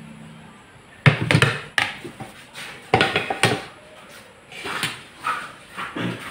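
A series of sharp knocks and clatters of tableware being handled and set down on a table, irregularly spaced from about a second in.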